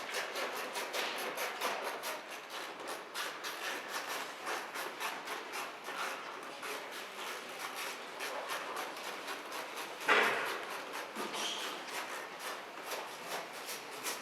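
Quick, repeated rubbing or scraping strokes of hand work, with one sharp knock about ten seconds in.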